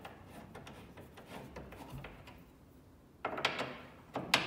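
T-handle hex wrench driving a bolt through a wooden bed rail into a steel wall-bed mechanism plate. Light clicks and small scrapes, then two short, louder metal rasps about three and four seconds in, the second ending in a sharp click.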